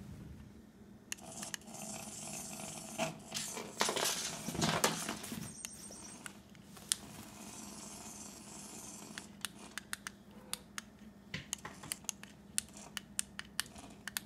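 Small electric motor of a remote-controlled toy mouse whirring, rising and falling as it scoots across a tiled floor. From about nine seconds in it gives way to a run of light, sharp clicks.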